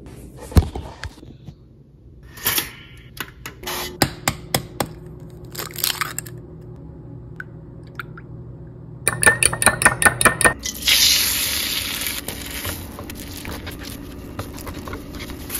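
Kitchen cooking sounds: scattered knocks and clicks of a bowl and utensils, then a fast clatter of eggs being beaten in a bowl about nine seconds in. After that comes a steady sizzle of eggs scrambling in a nonstick pan, with a spatula scraping.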